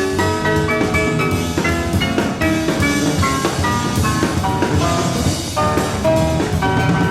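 Jazz piano trio playing: quick runs of short piano notes over double bass and drum kit, heard from a cassette tape recording of an FM radio broadcast.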